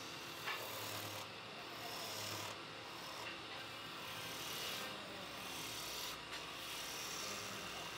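Wide flat chisel cutting a spinning wooden spindle on a lathe: a steady scraping shaving sound that grows duller and brighter several times as the tool works along the wood, with a small click about half a second in.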